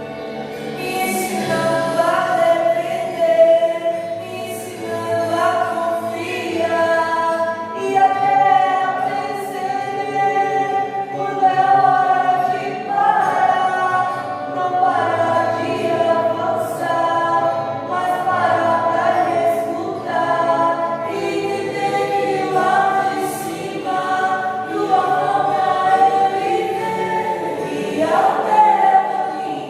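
Choir singing a gospel hymn in long held notes that shift from chord to chord.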